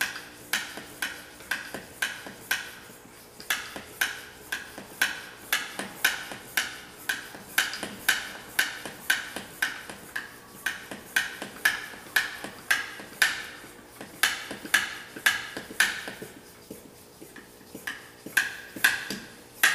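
Hand-operated oil-sampling vacuum pump worked in quick, even strokes, about two to three a second, with a short pause near the end. It is drawing engine oil from the oil pan up a plastic tube in the dipstick tube into the sample bottle.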